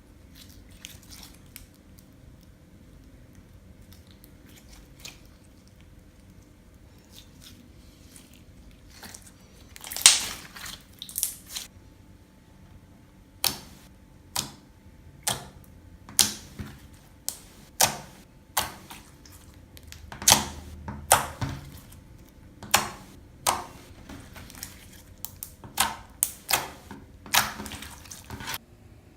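Hands squishing and poking toothpaste slime: faint handling at first, then from about a third of the way in a run of short, sharp wet squelches and pops, roughly one a second and bunching closer near the end.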